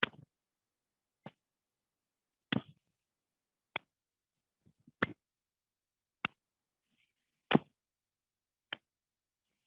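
Hands patting the body in time with swinging arms, one pat about every second and a quarter, alternating stronger and lighter as the hands strike opposite sides.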